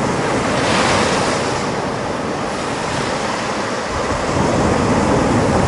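Sea surf breaking and washing up a sandy beach, with wind buffeting the microphone. A wave's wash swells about a second in, eases off through the middle, and builds again near the end.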